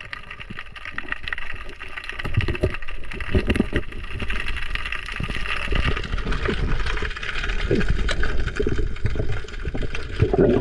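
Water sloshing and gurgling, with many short muffled knocks and thuds throughout.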